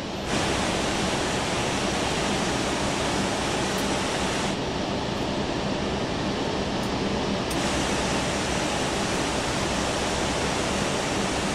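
Steady, even rushing noise of a large jet airliner at the gate, engine and airflow noise. It starts suddenly a moment in, and its tone changes for a few seconds in the middle.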